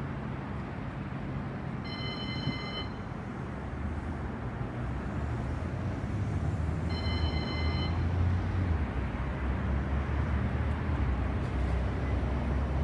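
CAF Urbos 100 tram approaching and pulling into the stop, its low running rumble growing louder in the second half. Two short high tones sound over it, about five seconds apart.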